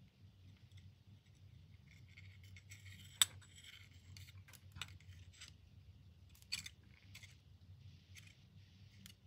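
Faint clicks and scrapes of a chrome socket being handled against the steel jaws of a digital caliper, with a few sharper clicks, the sharpest about three seconds in.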